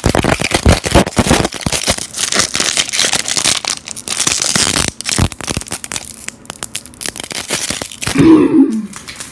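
Pokémon card booster pack wrapper crinkling and tearing as it is worked open by hand, busiest in the first half and more broken up later; a stubborn, hard-to-open pack.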